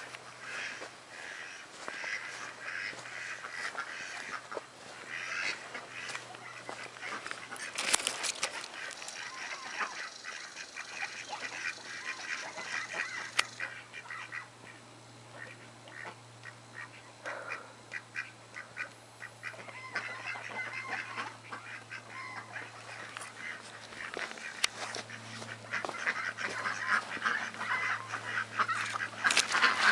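Poultry calling: a long run of short, repeated calls that thins out around the middle and is busiest near the end.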